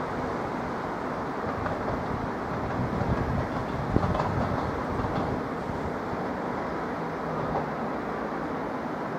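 Class 158 diesel multiple unit running slowly over pointwork, a steady rumble of engine and wheels with one sharp clank from the rails about four seconds in.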